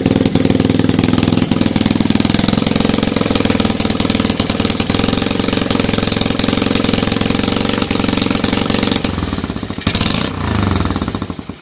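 Honda Monkey Z50J's 50cc single-cylinder four-stroke engine idling through a large slip-on silencer, with a fast, even exhaust beat and a good, steady idle. About ten seconds in it is briefly revved, then its pitch falls as it winds down and stops.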